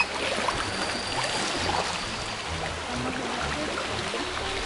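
Water splashing and trickling against a canoe's hull and paddle as it is paddled along, a steady wash of small splashes.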